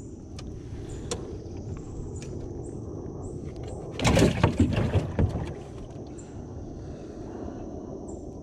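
A burst of sharp knocks and rattling against the small boat, lasting about a second and starting a little past four seconds in, as the angler handles his catch and gear in the boat. A steady low rumble and a thin, steady high hiss run underneath.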